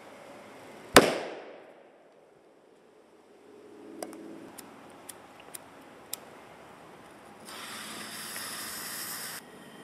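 A firecracker goes off with one loud, sharp bang about a second in, set off under a can to blast it upward. A few faint clicks follow a few seconds later. Near the end a lit fuse hisses for about two seconds and then stops.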